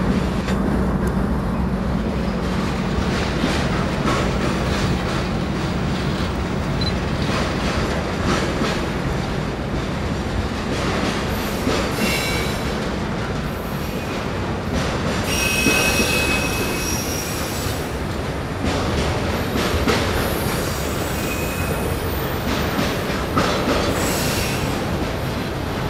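Loaded tank-car freight train rolling past, steel wheels clacking over the rail joints. The diesel drone of the Dash-9 locomotives fades over the first few seconds as they pull away. The wheels squeal with a high ringing tone about twelve seconds in and again for a couple of seconds shortly after.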